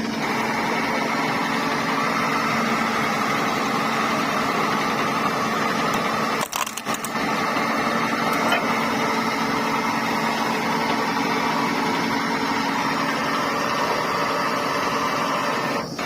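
Borewell drilling rig running steadily with a continuous mechanical noise, broken briefly about six and a half seconds in.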